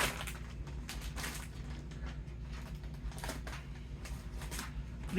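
Snack-bag packaging crinkling and rustling as it is handled, a string of short crackles.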